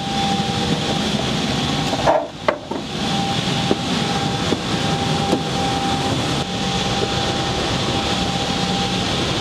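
Steady hum of air handling inside the A400M's cargo hold, with a thin steady whine over it. A few knocks and rustles about two seconds in, and light ticks after, as someone moves about.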